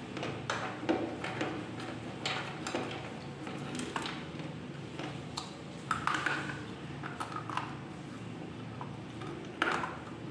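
Slate pencil being bitten and chewed close to the microphone: irregular, crisp crunches and clicks, with one of the sharpest just before the end.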